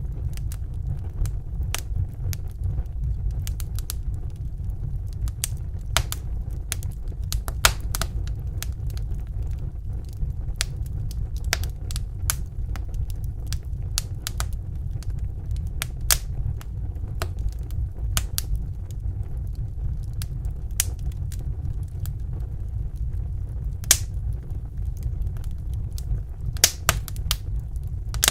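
Wood fire burning in a fireplace: irregular sharp crackles and pops over a steady low rumble, with a couple of louder pops near the end.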